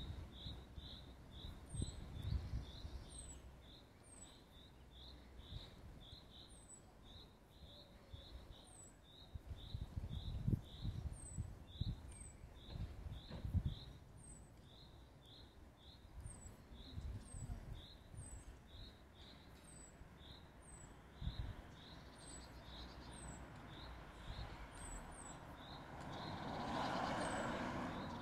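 A small songbird chirping over and over, short chirps about twice a second, with fainter higher notes in between. Low rumbles come and go, and a broad rush of noise swells near the end.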